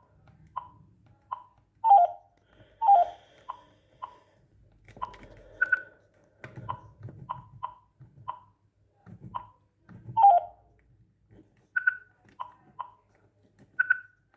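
Poss DP1305 cordless phone handset beeping with each key press as its menu is worked: a string of short beeps, mostly at one pitch, with a few higher ones and a few louder, lower ones. Light handling knocks of the handset come in between.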